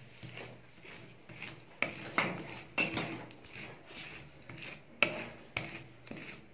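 Metal spatula scraping and tapping on a frozen rolled-ice-cream pan as it scores the thin spread layer into strips, with several sharp clicks where the blade strikes the pan.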